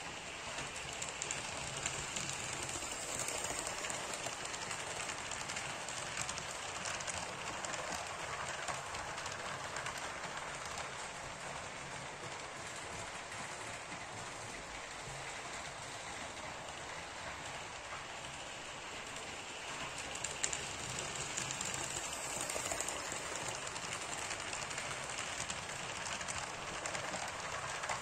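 HO-scale model trains running on the layout's track: a steady rolling noise of metal wheels on rails with motor hum. It grows louder in the last few seconds, with a sharp click about two-thirds of the way through, as passenger coaches pass close by.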